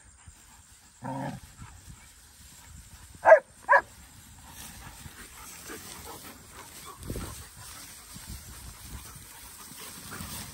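German shepherds play-fighting: a short low bark about a second in, then two loud, sharp barks in quick succession about three and a half seconds in. Faint rustling through grass follows.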